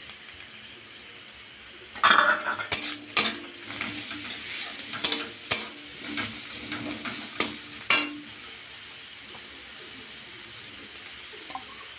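Onions and ginger-garlic paste sizzling in hot oil in a kadai. From about two seconds in to about eight seconds, a metal spatula stirs them, scraping and clinking against the pan. After that only a quieter, steady sizzle is left.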